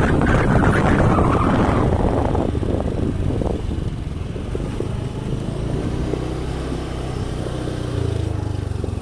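Motorcycle engine running with wind rushing over the microphone while riding; the wind noise fades after about two seconds as the bike slows to a low, steady engine note, which rises slightly near the end.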